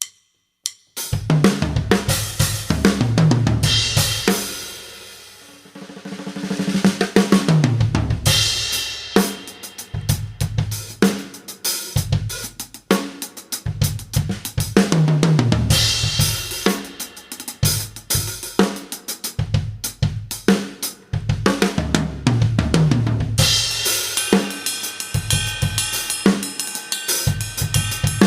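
Acoustic drum kit played as an improvised groove, with kick, snare, toms, hi-hat and cymbals, picked up by a single dynamic mic over the drummer's shoulder. It starts about a second in, and a cymbal crash is left to ring and fade for a couple of seconds before busy playing picks up again.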